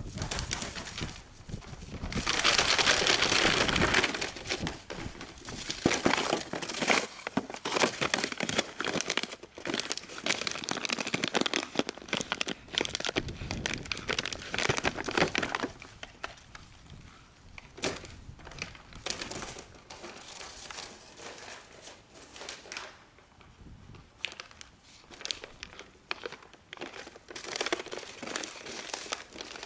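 Bull terrier biting and dragging a large empty plastic water bottle: the thin plastic crinkles and crackles in irregular bursts. It is loudest a few seconds in and quieter for a stretch past the middle.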